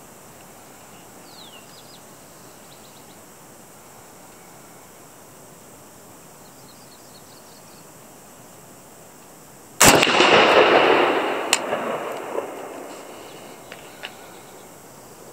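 A single rifle shot from a PTR-91 firing .308 Winchester, about ten seconds in. The shot rolls on as a long echo that fades over several seconds, with a few faint clinks in the tail.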